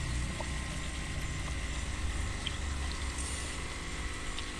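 Water sloshing and bubbling as koi crowd and splash in the shallow water of a drained pond, over a steady low mechanical hum like a running pump.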